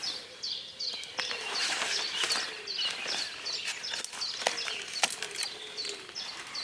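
Dawn chorus of songbirds: many short high chirps repeating throughout, with a few sharp clicks in between.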